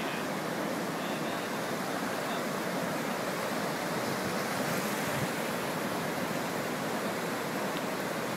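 Fast-flowing floodwater rushing through a street, a steady even roar of torrenting water.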